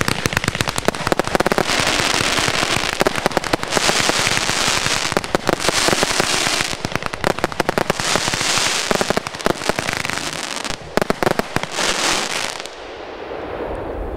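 2Fireworks 'Nanjing' consumer firework cake firing shot after shot in rapid succession: a fast, unbroken string of launch thumps and bursts with long stretches of crackling from the glittering stars. The shots stop near the end, leaving a fading crackle.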